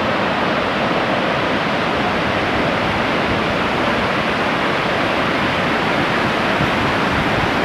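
Shoshone Falls, a large waterfall on the Snake River, rushing steadily: a dense, even noise of falling water with no breaks.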